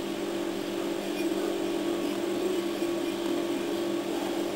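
Steady low background hum holding a constant pitch, with no distinct events.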